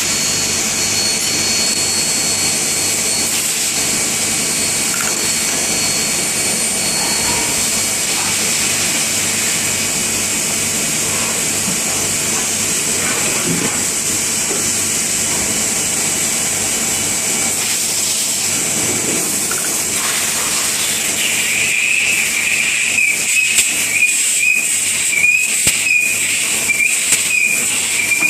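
A machine tool: a steady high hiss, joined about three quarters of the way through by a high, wavering whine and a rapid crackle of clicks.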